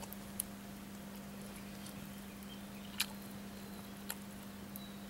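Quiet ambience with a steady low hum and a few isolated sharp clicks, the loudest about three seconds in.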